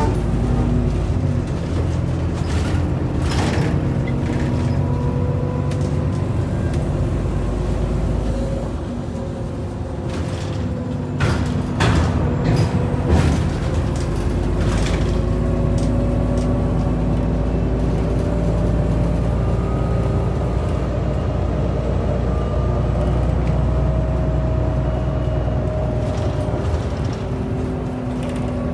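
Irisbus Citybus 12M city bus heard from inside the passenger cabin while driving: steady engine running with whining tones that rise and fall in pitch as it speeds up and changes gear. A cluster of sharp rattles and knocks comes from the body about a third of the way through.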